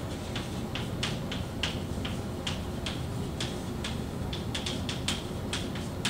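Chalk tapping and scratching on a chalkboard as words are written: an irregular run of short, sharp clicks, several a second.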